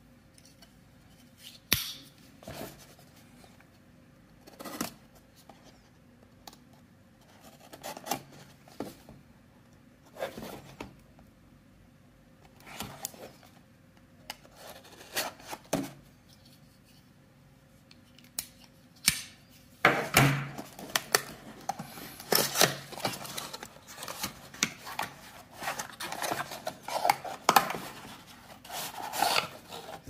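A small cardboard product box being opened and unpacked by hand, with its inner black foam insert handled. Scattered taps and scrapes at first, then near-continuous rubbing and scraping of cardboard from about twenty seconds in.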